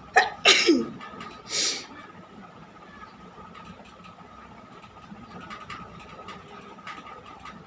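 A sneeze: a sudden burst of breath with a falling voiced cry. About a second later comes a short, sharp hiss of breath through the nose. A faint steady whine runs underneath.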